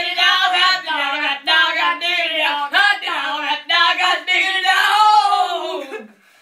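A high-pitched voice singing a bouncy melody in short phrases. The last note slides down and stops about six seconds in.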